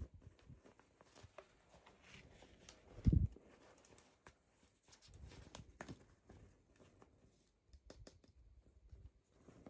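Doll packaging being handled: scattered clicks and rustles of plastic and cardboard, with one dull thump about three seconds in.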